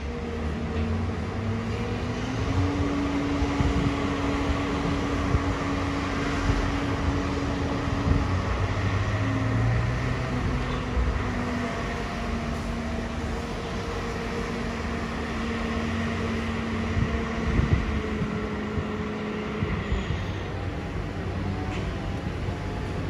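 Sydney Trains Waratah double-deck electric train approaching the platform, its traction equipment humming in a few steady tones that step up and down in pitch, over a steady rumble.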